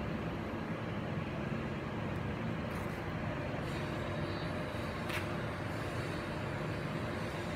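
Steady mechanical drone with a low hum from running machinery, with a brief hiss about five seconds in.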